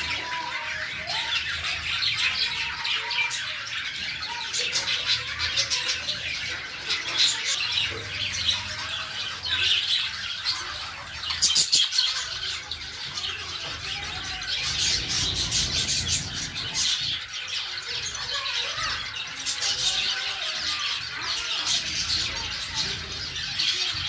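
A colony of budgerigars and finches chattering and chirping all at once: a dense, unbroken mix of many short high calls, loudest about twelve seconds in.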